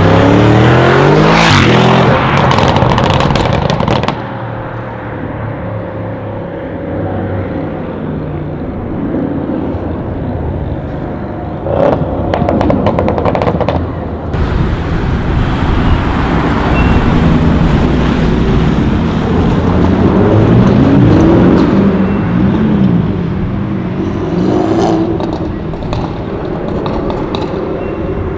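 Tuned Audi RS6 C7 twin-turbo V8s with aftermarket exhausts accelerating and revving as they pass, the engine note rising and falling loudly. There are bursts of sharp crackling near the start and about halfway through.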